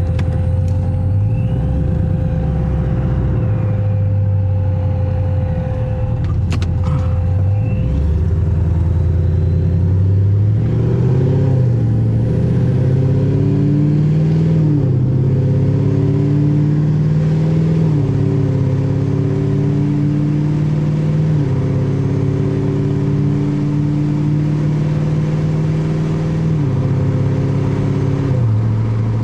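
Supercharged 6.2-litre V8 of a 2020 Camaro SS running through an AWE Touring exhaust, pulling hard. From about ten seconds in, the engine pitch climbs steadily and then drops sharply about six times as the automatic shifts up.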